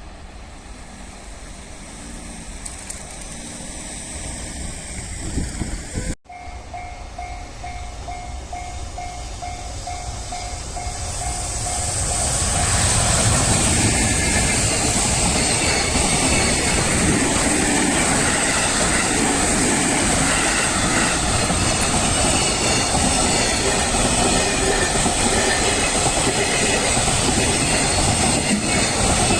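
Japanese level-crossing warning bell ringing in a fast repeating pattern, then a train running through the crossing: a loud, steady rumble with the clatter of wheels on the rails that builds over several seconds and stays loud.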